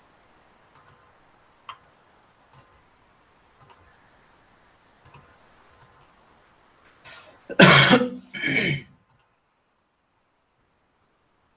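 A handful of sharp, separate computer-mouse clicks, about a second apart, followed about seven and a half seconds in by a loud cough in two bursts.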